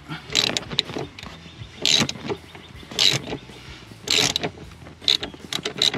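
Hand ratchet clicking in short runs, about once a second, on the return strokes as it backs out a Torx Plus T45 seatbelt-bracket bolt.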